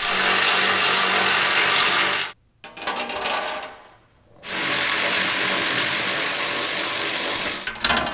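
Cordless ratchet running in three spells, a long one, a short one and another long one, as it spins out the skid plate bolts.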